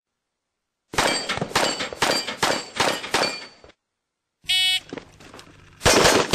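A pistol fired in a fast, evenly spaced string of about seven shots, then a short buzzing electronic beep, and another rapid string of shots starting near the end.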